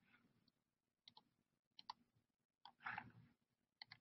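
Near silence with a handful of faint, short clicks scattered through it.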